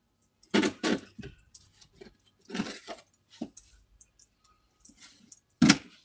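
Snow crunching and scraping in short, sharp strokes, picked up by a doorbell camera's microphone: a quick pair about half a second in, another in the middle, and the loudest near the end.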